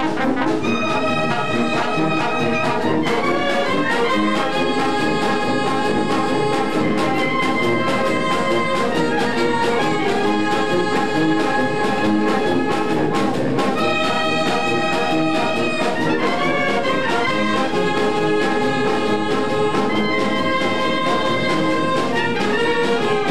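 Brass band playing a melody in long held chords, trumpets and trombones together, the notes changing every second or two.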